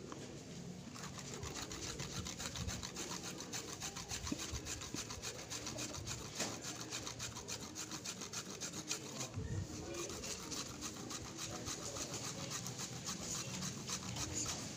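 Fresh turmeric root scraped back and forth against the edge of a kitchen knife to grate it, a fast, even run of rasping strokes with a short break about nine seconds in.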